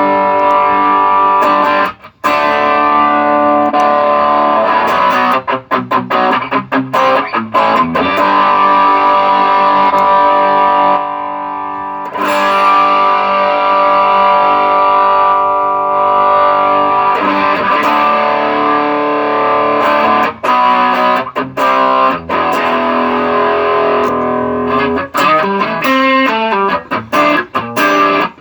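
Electric guitar played through a TC Electronic Nova Drive pedal, giving an overdriven tone: held chords and single notes ringing out, a short break about two seconds in, and a run of quick picked notes near the end. The pedal is working again after its gain and volume pots were replaced.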